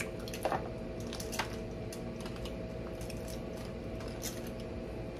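Scattered small clicks and wet squishing from people eating seafood by hand, over a faint steady hum.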